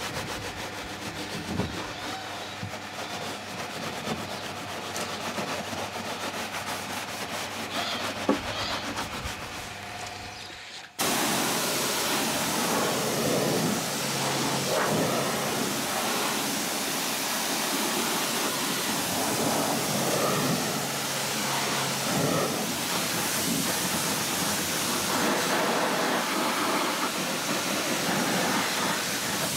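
A wet wash mitt rubbing over a foamed tyre and plastic hubcap. About eleven seconds in, a pressure washer's jet starts suddenly with a loud, steady hiss as it rinses the foam off the wheel and tyre.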